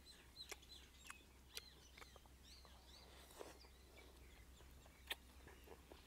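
Near silence: faint scattered clicks from eating noodles with chopsticks, with faint bird calls in the background.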